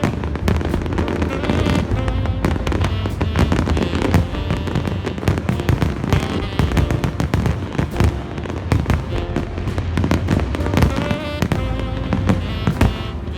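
Fireworks display, with many shells bursting in quick succession, crackling and banging, over music.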